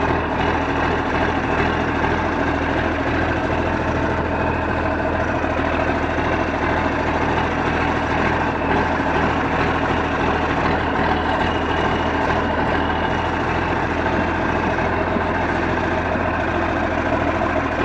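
John Deere 4630 tractor's turbocharged six-cylinder diesel running steadily as the tractor drives along in gear.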